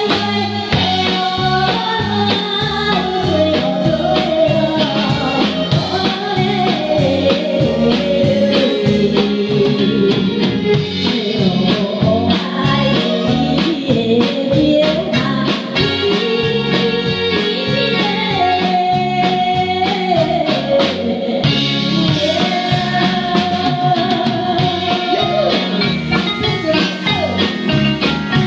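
Female vocals sung through a microphone over a live band, with a drum kit keeping a steady beat and electric guitar backing. The voice holds long notes in places.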